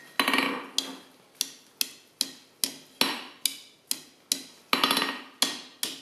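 Blacksmith's hand hammer striking a red-hot bar on an anvil, an even run of blows about two to three a second, each followed by a short metallic ring, as the bar is bent into a circle.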